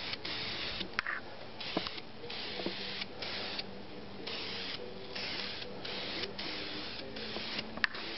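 Aerosol can of aluminum metallic spray paint hissing in quick repeated bursts, about a dozen short sprays of under a second each, with a few light clicks between them.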